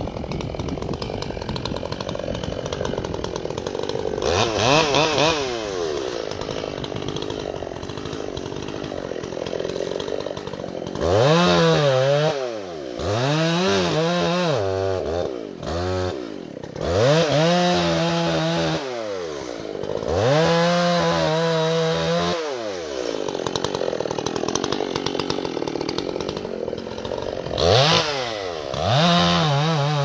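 Two-stroke chainsaw cutting into a casuarina trunk. It runs at part throttle at first, then is revved again and again from about a third of the way in, each rev rising and falling in pitch, with another rev near the end.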